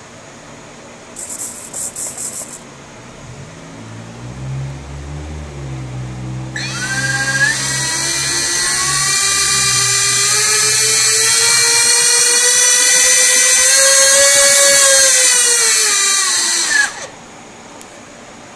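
Twin 30 mm electric ducted fans, driven together on a single throttle channel, spooling up from a low hum to a loud high-pitched whine. The pitch climbs slowly, then eases down before the fans cut off abruptly near the end. A short high buzzing burst comes about a second in, before the spool-up.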